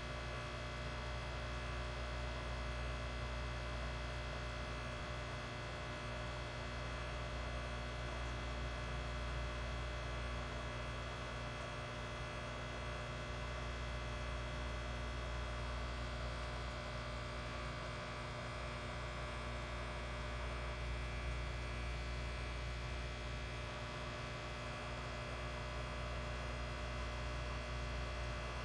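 Steady low hum of running aquarium equipment, unchanging throughout.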